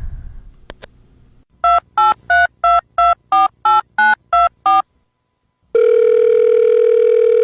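Phone keypad touch-tones: ten quick two-tone beeps as a number is dialed. After a short pause comes a steady phone tone lasting about two seconds.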